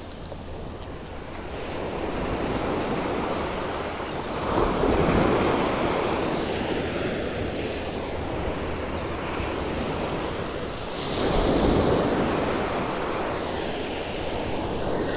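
Ocean surf washing onto the beach, with wind on the microphone; the rushing noise swells louder twice, about four seconds in and again about eleven seconds in.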